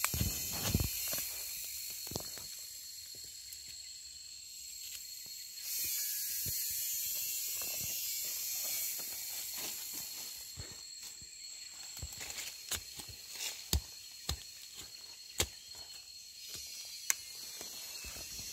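Footsteps crunching and rustling through dry bamboo leaf litter, with sharp cracks of snapping stems and twigs, several of them in the second half, over a steady high-pitched buzz that swells for a few seconds in the middle.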